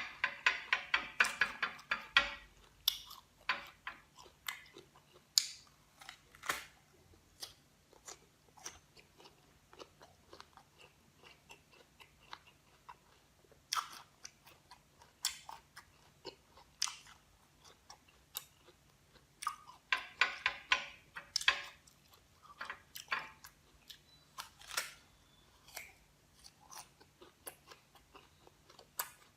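Crisp green guava being bitten and chewed close to the microphone. There is a dense run of crunching at the start and again about two-thirds of the way through, with scattered crisp crunches between.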